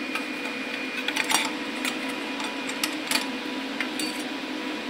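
Light, scattered clicks and taps of a Yamaha WR250X's EXUP valve cover being worked loose by hand, over a steady background hum.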